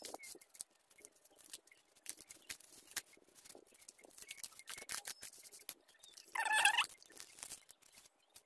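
Paper bouquet wrapping and satin ribbon crinkling and rustling in a stream of irregular small clicks as a ribbon is tied around the bouquet. One short high-pitched squeak comes about two-thirds of the way through.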